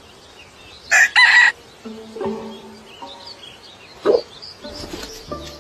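A chicken calling loudly once about a second in, followed by a few quieter short calls.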